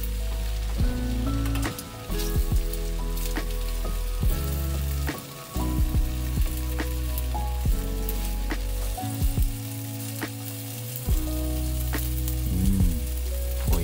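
Pork and vegetables in a thickened ankake sauce sizzling in a frying pan while being stirred, with irregular sharp clicks of the spatula against the pan.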